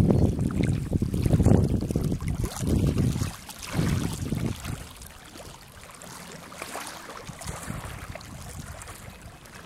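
Wind buffeting the microphone in loud, uneven low gusts for the first four seconds or so, then easing to a soft, steady rush.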